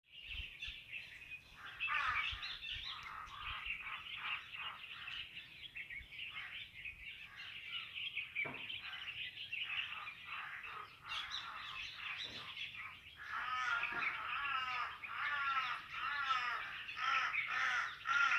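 Many birds chirping and calling at once. From about two-thirds of the way in, a run of harsh calls repeats several times a second.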